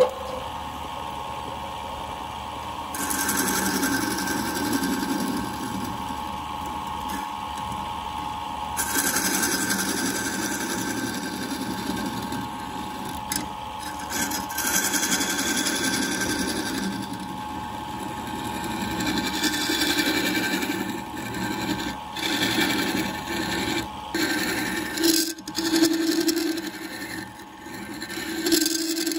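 A wood lathe's motor runs with a steady hum while a hand-held turning chisel cuts into the spinning bamboo blank. The cutting comes and goes in bursts as the end is trimmed and the inside of the cup is hollowed out.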